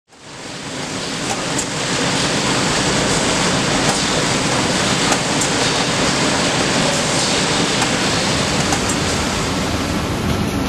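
Steady factory machinery noise from bag conveyors running, a dense hiss over a low rumble with a few faint clicks. It fades in over the first couple of seconds.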